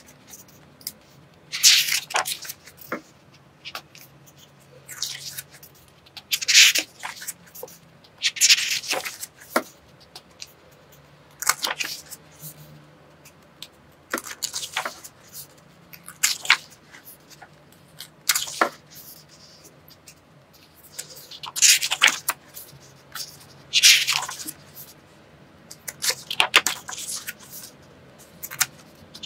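Pages of a fashion design drawing book being turned one by one, each a short paper swish, about a dozen in all, every two seconds or so.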